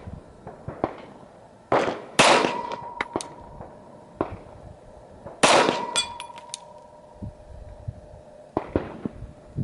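Glock 40 10mm pistol shots fired at steel plates 100 yards away. Each hit is followed by the clang and a ringing tone of the struck plate, heard about two seconds in and again about five and a half seconds in.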